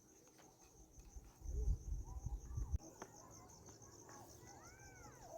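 Crickets chirring steadily in a high, rapidly pulsing trill, with a few low thumps about a second and a half in.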